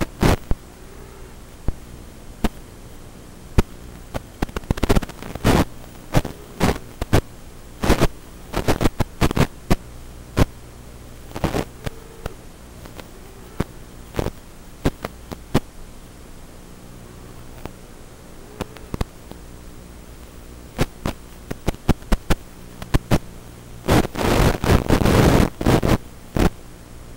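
Audio track of an analog FPV video receiver's DVR recording: a steady electrical hum with scattered sharp crackles of radio static, thickening into a dense burst of crackling near the end.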